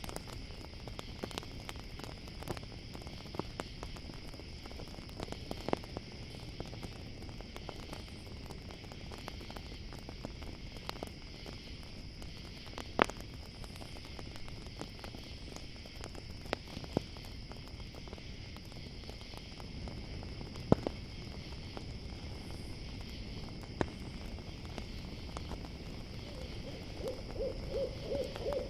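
Campfire crackling with scattered sharp pops over a steady high chorus of crickets. An owl starts hooting near the end.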